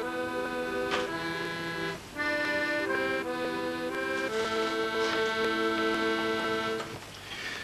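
Accordion playing a melody over held chords. The music breaks briefly about two seconds in, then settles on a long chord that fades near the end.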